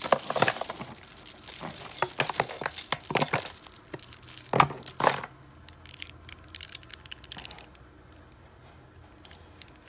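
Costume jewelry (beads, metal bangles and chains) clinking and rattling as a hand rummages through a cardboard box of it, loudest for about the first five seconds; then a few light clicks as a strand of faux pearls and metal beads is handled.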